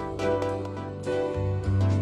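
Background music: a melody of plucked notes over held bass tones.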